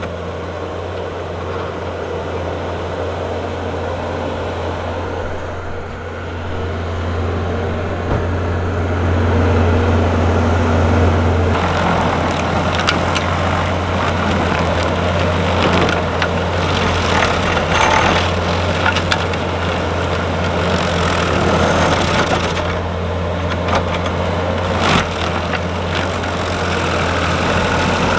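Skid steer engine running steadily under load with an Arbor Wolf stump grinder attachment. After about eleven seconds the grinder wheel bites into the stump, adding a dense crackle of cutting and flying wood chips over the engine hum.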